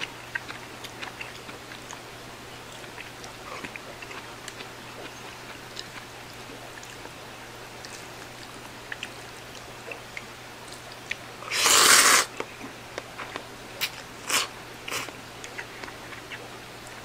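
Soft chewing and light clicks of chopsticks against a ramen bowl, then, about twelve seconds in, a loud slurp of instant ramen noodles followed by three short slurps.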